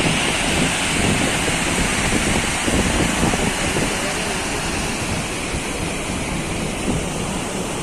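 Chitrakoot Falls' water rushing as a steady noise, with wind buffeting the microphone.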